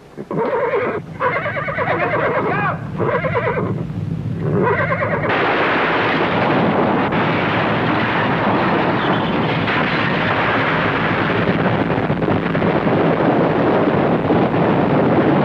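A horse neighing and whinnying in several calls. About five seconds in it gives way suddenly to a loud, steady rumbling roar: an earthquake sound effect of buildings shaking and collapsing.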